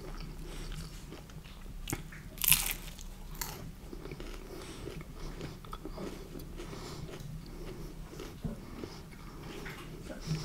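Close-miked eating of pepperoni and beef pizza: steady small chewing clicks, with one louder bite about two and a half seconds in.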